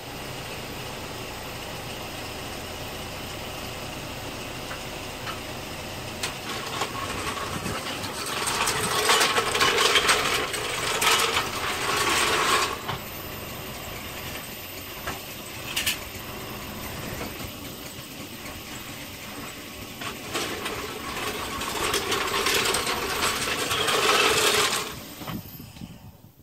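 Toyota Platz petrol engine running steadily at idle, with two louder spells of mechanical noise, then switched off near the end so the sound drops away suddenly; the new oil is then left to drain back to the sump.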